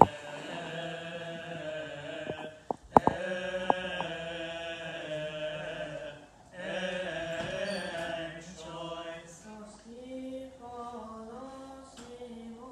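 Coptic liturgical chant: voices singing a slow hymn in long held phrases, breaking briefly about three and about six seconds in. A sharp click sounds at the start and another about three seconds in.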